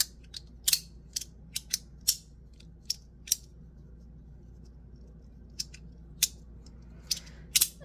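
Aluminum two-click magnetic slider fidget (FidgetThings Tab Chonky Boi) snapping from one position to the other: its plates click sharply each time the magnets pull them over. The clicks come in small irregular bunches, about a dozen in all, with a pause of about two seconds in the middle.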